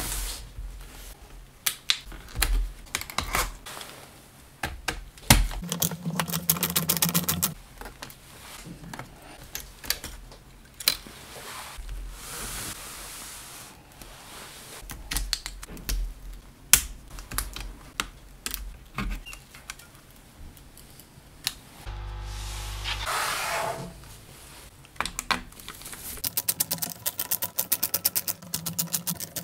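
Small clicks and taps of hands and a screwdriver working on a laptop's opened plastic case and motherboard, with two runs of rapid, evenly spaced clicking, one early and one near the end.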